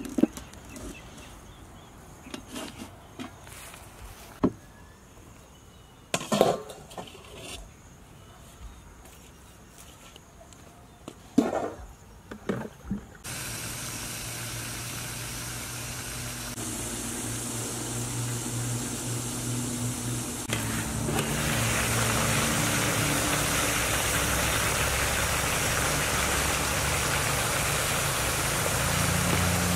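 A few sharp metallic knocks as an aluminium stockpot is handled on a charcoal stove, then a steady noise with a low hum as the covered pot boils hard over the charcoal fire, growing louder in steps over the second half.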